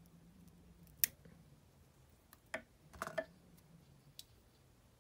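A few sharp clicks from small fly-tying scissors snipping at a dry fly held in the vise, the loudest about a second in, with a short cluster of clicks and handling noise around three seconds in.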